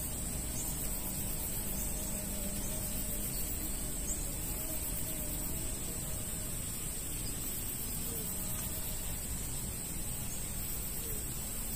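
Steady outdoor background noise: a low rumble under a constant high hiss, with no distinct event standing out.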